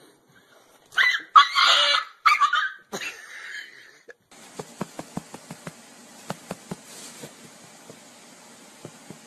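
A cat and a dog fighting: loud, harsh snarls and hisses for about three seconds. Then, after an abrupt change, a run of light clicks over a steady hiss.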